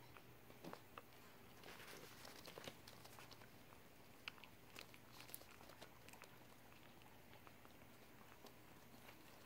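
Near silence: room tone with a faint steady low hum and scattered faint ticks and rustles.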